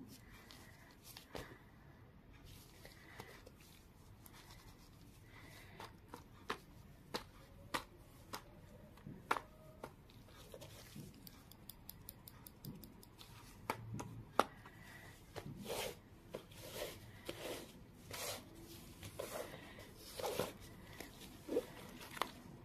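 A folded-paper craft being handled with tweezers and gloved hands: irregular clicks, taps and paper rustling, sparse at first and busier in the second half.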